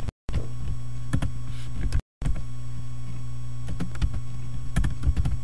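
Scattered keystrokes on a computer keyboard over a steady electrical hum. The audio drops out to silence briefly twice, once at the start and once about two seconds in.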